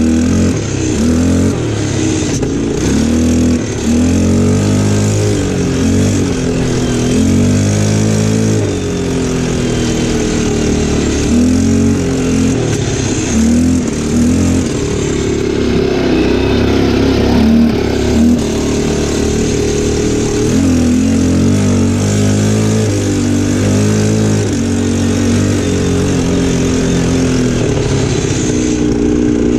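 ATV engine running under way on a dirt track, its revs rising and falling again and again as the throttle is worked. It has a deep, booming note.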